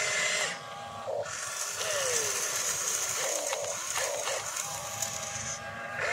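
Remote-control excavator's electric motors whining as it lifts and swings its boom, the pitch sliding up and down with each movement in short whirring pulses, over a steady high hiss.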